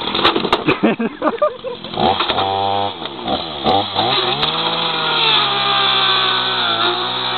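Chainsaw cutting into the plastic casing of a portable CD player. The chain rattles and clatters against the plastic at first. Then the motor holds a steady note that sags and recovers as the chain bites.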